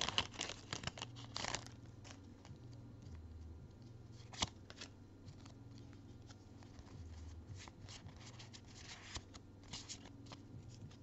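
Foil booster-pack wrapper crinkling as a stack of Pokémon trading cards is pulled out of it, then soft rustles and ticks of the cards being slid and handled, with one sharp click about four seconds in.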